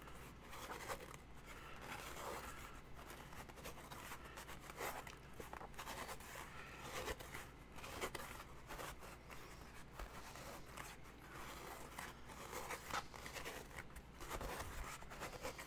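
Foam costume piece being sanded: faint, irregular scratchy rubbing strokes, with no power tool running.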